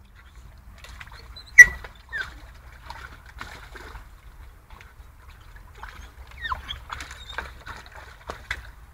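Water sloshing and splashing as a dog wades through a small plastic paddling pool, pushing a large plastic play egg around. A single sharp knock about a second and a half in is the loudest sound, and short squeaks and small splashes cluster near the end.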